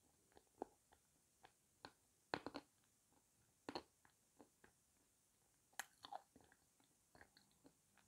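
Close mouth sounds of a person chewing soft, soaked blue Uzbek clay: scattered wet clicks and smacks, with a few louder ones around the middle.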